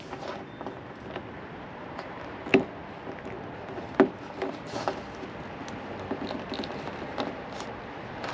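Plastic electrical connectors being handled and pushed together: two sharp clicks, about two and a half and four seconds in, among lighter ticks and taps.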